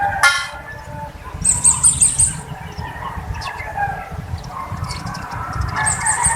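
Birds calling: a short harsh squawk just after the start, then a quick run of about six high, repeated chirps, with another run of chirps near the end, over a steady low rumble.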